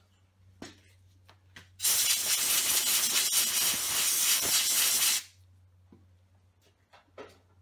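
Compressed-air blow gun hissing in one steady blast of about three seconds, blowing swarf off a workpiece in a metal lathe chuck; the blast starts about two seconds in and cuts off sharply. A few faint clicks and a low steady hum lie around it.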